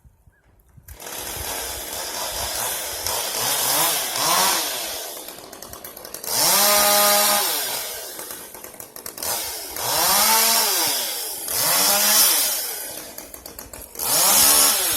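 Chainsaw cutting limbs up in a tree: it starts about a second in, then revs up and back down about five times.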